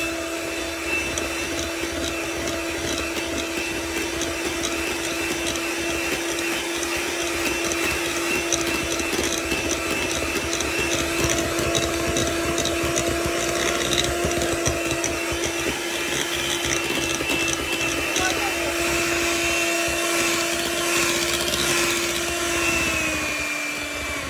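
Electric hand mixer running steadily, its twin beaters churning a thick creamed butter-and-biscuit dough. The motor hum drops slightly in pitch near the end, just before the mixer switches off.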